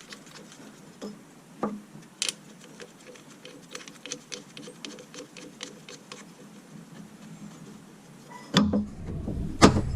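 Light metallic clicks and ticking as nuts and bolts are put onto the new side engine mount and run down by hand, with a few sharper knocks. Near the end comes louder handling noise and a sharp knock.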